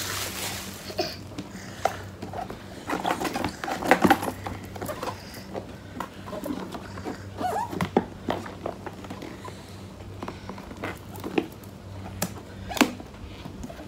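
Plastic wrapping crinkling and a cardboard box rustling as it is unwrapped and pried open, with scattered taps and a few sharp clicks. The lid is stuck and hard to open.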